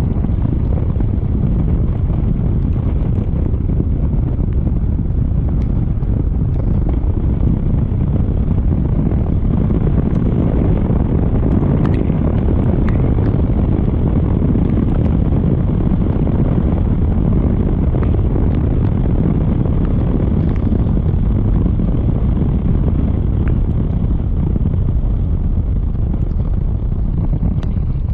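Steady low rushing of wind on the camera microphone of a Honda ADV 160 scooter riding at road speed on a wet road, mixed with the scooter's running and tyre noise.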